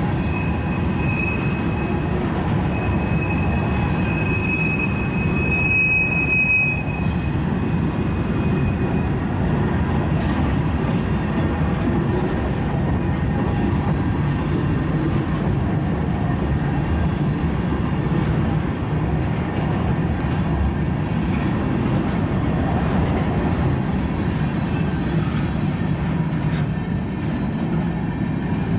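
Covered hopper cars of a freight train rolling past: a steady rumble of steel wheels on rail. A thin high wheel squeal rides over it from about one to seven seconds in.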